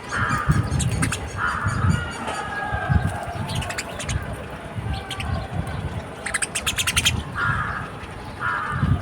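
Crows cawing, about four short harsh caws, with smaller birds giving quick runs of sharp chirps in between.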